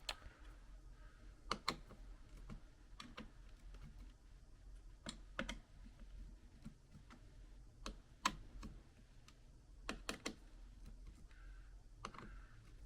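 Scattered light clicks and taps of a screwdriver and small parts on a laptop's insides while the fan and heatsink are fitted back, their screws driven in and cables connected. The clicks come singly or in quick pairs, irregularly spaced, over a faint low hum.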